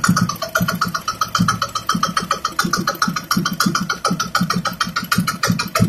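Kaiser single-cylinder diesel boat engine running on a test stand, its firing making a rapid, even knocking beat.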